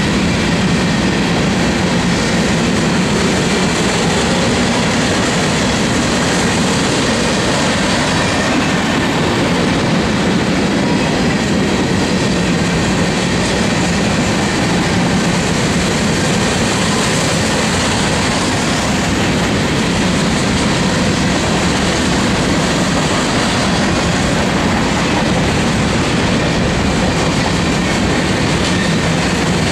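Union Pacific freight train's covered hopper cars rolling past close by: a loud, steady noise of steel wheels running on the rails.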